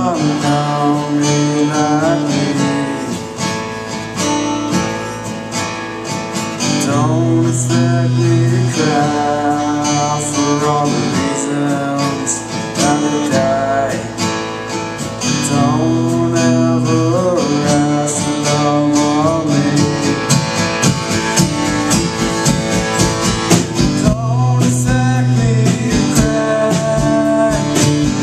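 Acoustic guitar strummed while a man sings into a microphone: a solo live performance.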